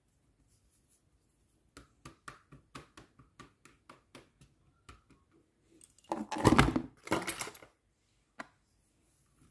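A run of light sharp taps, two or three a second, as stretched pizza dough in a metal pan is pricked with a fork. Then a louder rustling noise for under two seconds, and one last tap.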